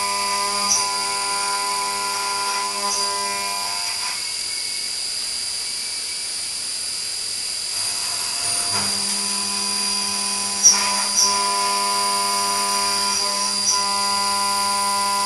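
CNC vertical milling machine's spindle and end mill cutting a metal block, a steady machining whine made of several pitched tones. The tones drop away for about four seconds in the middle, then return. There are a few sharp ticks near the end.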